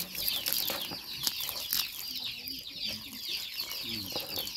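A brood of domestic chicks peeping continuously: many short, high-pitched, falling cheeps overlapping in a rapid stream.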